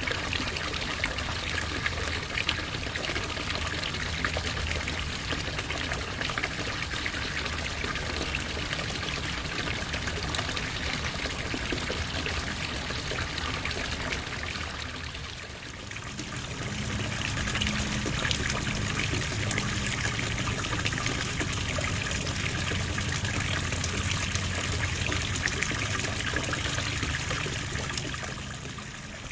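Water trickling and pouring steadily into a backyard garden pond. It dips briefly about halfway through, then carries on a little fuller.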